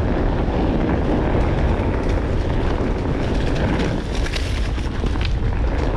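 Steady low rumble of wind buffeting the microphone while riding a Onewheel GT along a dirt trail, with a few light clicks from the ride.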